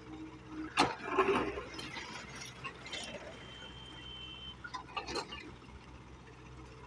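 JCB tracked excavator's bucket digging into a pile of gravel sub-base: a sharp knock as the teeth bite in, then stones clattering and clinking as the bucket drags and fills, with more clinks a few seconds later, over a steady low engine hum.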